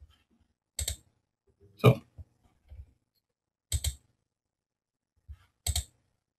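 Computer mouse clicks: four single, separate clicks about two seconds apart, the second a little fuller than the others.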